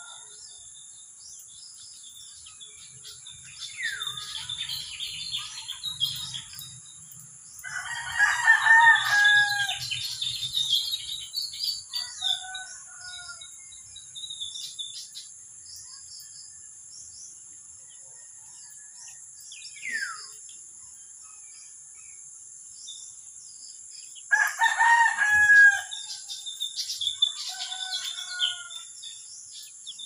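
A rooster crowing twice, about eight seconds in and again about twenty-four seconds in, each crow followed soon after by a fainter one. Small birds chirp and twitter in between, with a couple of quick falling whistles.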